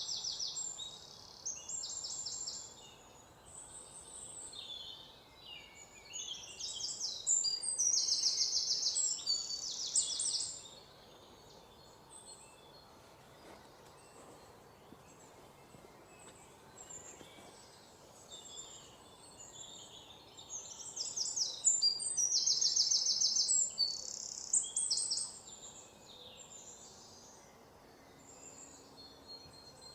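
Small birds chirping and singing, with bursts of rapid high trills that come and go, loudest about a third of the way in and again past two-thirds.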